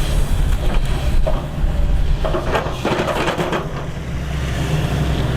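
Excavator's diesel engine running steadily under load, with a burst of clattering and scraping from the bucket or tracks working mud about two seconds in.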